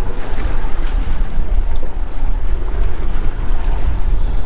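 Wind buffeting the microphone over the wash of waves and water around a fishing boat at sea, as a loud, steady low rumble.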